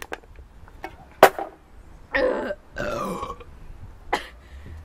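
A person burping twice, about two and three seconds in, after chugging a can of carbonated soda. A few sharp clicks come before the burps, the loudest a little over a second in.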